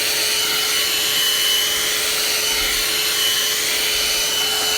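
One-step hot-air hair dryer brush running steadily: a noisy rush of blown air with a steady low hum and a high whine from its motor.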